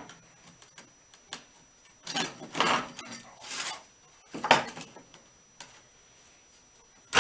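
Scattered metal clanks, knocks and scraping as a 1/4-inch steel plate is handled and slid into place on a table saw, with the sharpest knock about four and a half seconds in.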